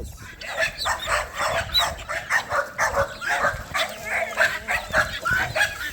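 Dog barking over and over in quick short barks, about three or four a second, without a break.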